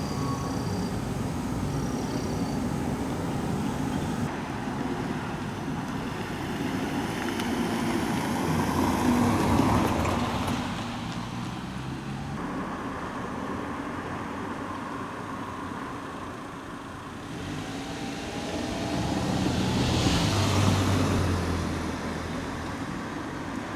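Road traffic: steady traffic noise, with one vehicle passing close by about ten seconds in and another a little after twenty seconds, each swelling and fading away.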